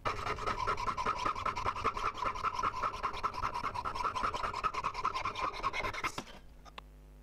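Jeweller's piercing saw cutting through a thick solid silver ring band, quick, even rasping strokes that stop about six seconds in.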